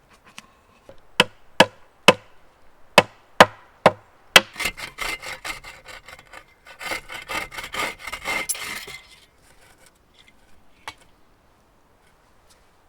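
Wood being worked with hand tools: about seven sharp knocks roughly half a second apart, then several seconds of quick back-and-forth sawing strokes through wood, and one last knock near the end.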